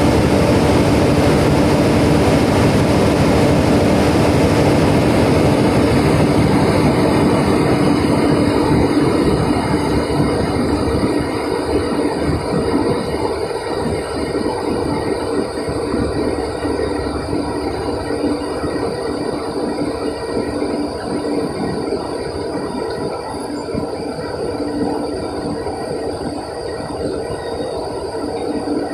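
A stationary passenger train running steadily at the platform: a constant mechanical hum with one held tone, easing slightly in loudness about ten seconds in.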